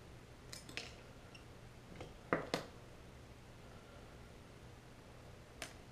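A few short clicks and taps of small parts from a disassembled Bostitch brad nailer being handled over a workbench, the loudest pair about two and a half seconds in, over a low steady hum.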